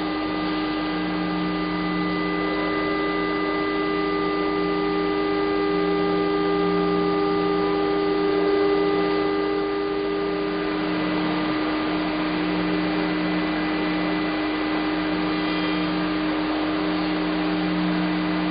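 Steady machine hum with several steady tones over a hiss, with a slow pulsing in the low hum; the tones and hiss shift about ten seconds in.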